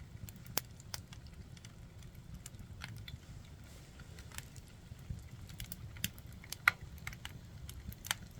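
Firewood burning, crackling with irregular sharp snaps and pops over a low steady rumble. The loudest snaps come about two-thirds of the way through.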